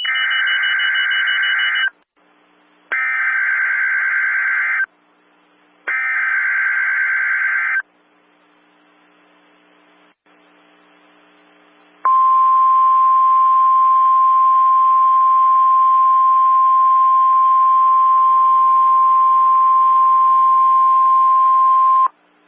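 NOAA Weather Radio Emergency Alert System signal: three SAME header data bursts, each a harsh buzzing warble about two seconds long with a second's gap between them. After a pause of about four seconds comes the steady single-pitch 1050 Hz weather radio alert tone, held for about ten seconds, announcing a tornado watch.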